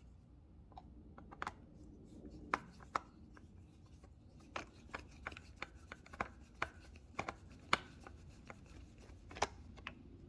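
A Phillips screwdriver working small screws out of a motorcycle's headlight and instrument assembly: faint, irregular clicks and ticks of the tool in the screw heads and of small parts being handled.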